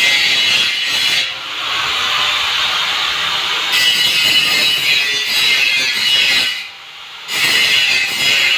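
Angle grinder grinding metal: a steady, loud grinding noise with a high whine. The tone shifts for a couple of seconds a little over a second in, and the grinder cuts out briefly about three-quarters of the way through before starting again.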